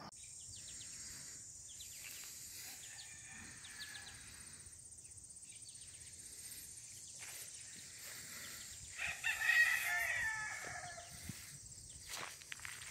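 A rooster crowing once, about nine seconds in, for about two seconds, over a faint steady high-pitched drone of insects.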